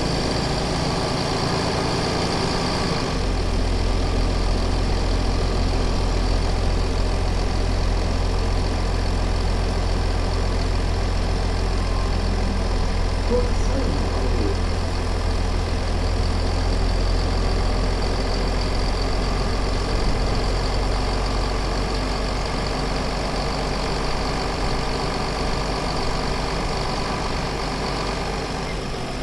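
MAN Lion's City city bus engine heard from inside the bus, running steadily. About three seconds in, a strong low drone sets in and holds.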